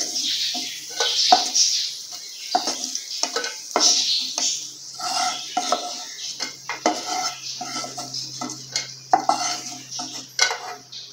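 Spatula scraping and tapping on a nonstick frying pan in irregular clicks as fried cashews are lifted out, over the hiss of hot ghee sizzling.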